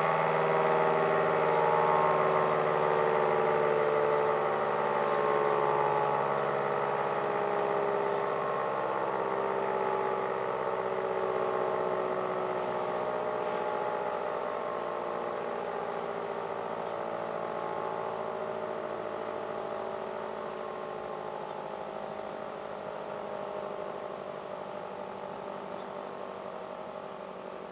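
Federal Signal Model 5T outdoor warning siren winding down at the end of a full alert signal. Its steady, chord-like tone fades slowly, with gentle swells as the rotating head turns.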